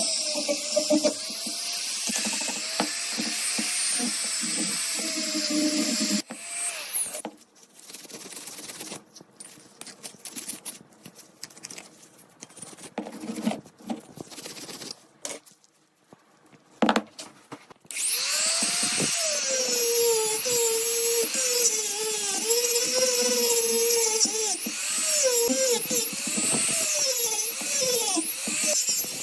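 Small high-speed electric power tool running with its pitch wavering as it is loaded against the work, typical of rust removal on metal parts. It stops after about six seconds, leaving some quieter handling clicks and a sharp knock. It then starts again and runs on with the same wavering whine.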